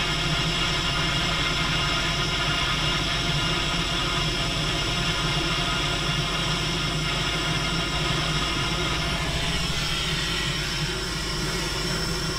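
Pen blowtorch flame burning with a steady hiss, heating a copper rigid coax to flow the solder into the joint at an SMA connector.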